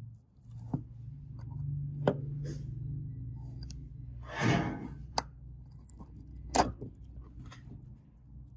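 Metal tweezers clicking and tapping against a phone's metal frame and battery as the parts are handled: a few sharp separate clicks, the loudest near the middle and toward the end, with a brief scraping rush about four and a half seconds in.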